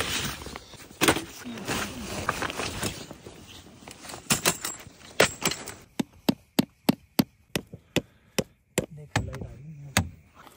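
Rustling and clatter of camping gear being handled, then a rock hammering a tent peg into the ground: a steady run of sharp knocks, about three a second for some four seconds.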